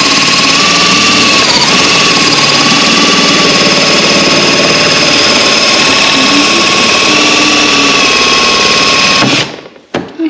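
Electric sheet-metal cutters running steadily with a high whine as they cut through a body panel, stopping abruptly about nine seconds in.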